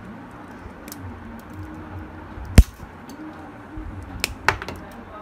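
Small side cutters snipping the wire leads of electrolytic capacitors: one sharp, loud snap about two and a half seconds in, then two smaller clicks near the end, over faint room noise.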